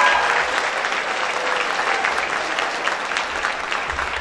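Audience applauding, slowly dying down.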